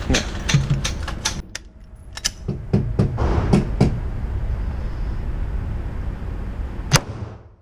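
A series of sharp clicks and knocks, several in quick succession in the first few seconds, then one sharp crack near the end.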